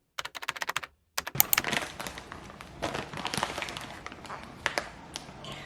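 Rapid light clicking for about a second, then after a short break scattered knocks and clicks of hands at kitchen work.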